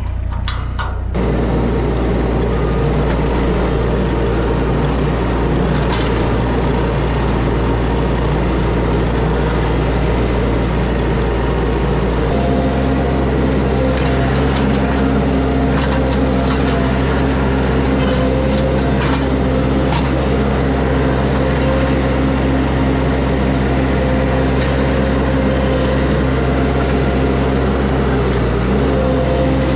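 A vehicle or machine engine running steadily, its note shifting to a new pitch about twelve seconds in, with a few faint clicks over it.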